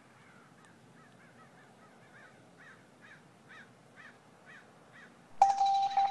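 A bird calling over and over in short, evenly spaced calls, about two a second, growing a little louder. About five seconds in, louder electronic music starts with a sustained tone and keys.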